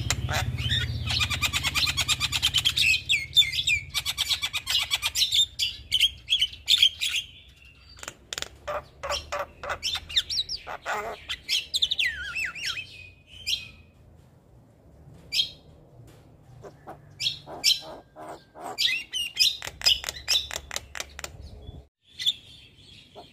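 Javan myna singing a long, varied chatter: a fast run of clicking, rattling notes for the first several seconds, then separate sharp calls and a few falling whistles, with a short break near the end.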